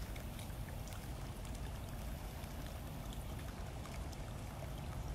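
Steady rushing noise with a flickering low rumble: wind buffeting the microphone outdoors, with a few faint ticks.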